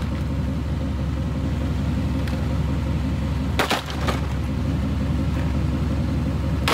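OBS Chevrolet truck engine running with a steady low rumble, under a rough crackling, scraping noise, and one sharp knock a little past the middle.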